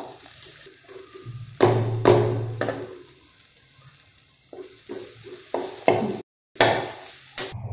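Steel slotted spatula stirring chopped dates frying in ghee in a steel kadai: about six sharp metallic clinks with a short ringing tail, three in the first half and three near the end, over a light sizzle.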